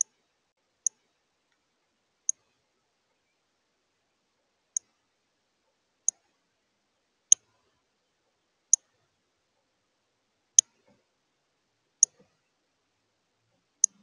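Male northern cardinal giving sharp, high chip calls, about ten single notes spaced one to two seconds apart, the later ones louder.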